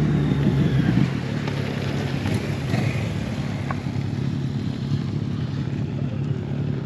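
Motorcycle engine running, loudest in the first second, then holding a steadier note.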